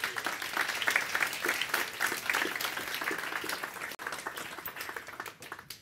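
Audience applauding, a dense clatter of many hands clapping that thins out and fades near the end.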